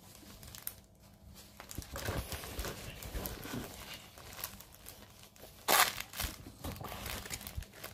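Crinkling and rustling as a cross-stitch kit's canvas and its packaging are handled, with scattered small clicks and one louder crackle a little under six seconds in.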